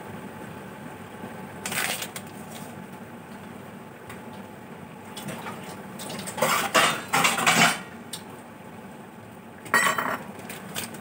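Kitchen dishes and utensils clattering as they are handled, in short bursts: once about two seconds in, a longer run between about six and eight seconds, and again near the end.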